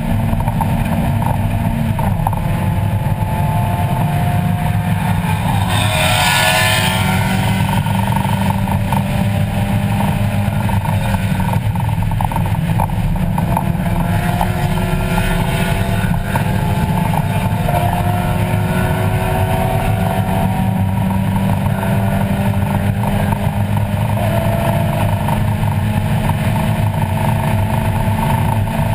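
In-cabin sound of a race-prepped 1994 Mazda Miata's 1.8-litre four-cylinder engine under hard track driving, its pitch climbing several times under acceleration and dropping back in between. A brief rushing noise about six seconds in.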